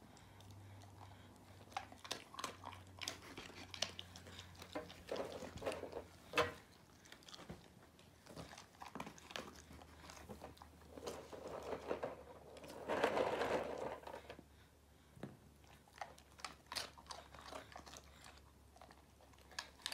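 Husky crunching and chewing dry dog treats, with many sharp crunches scattered through and a louder, longer spell of noise about two-thirds of the way in.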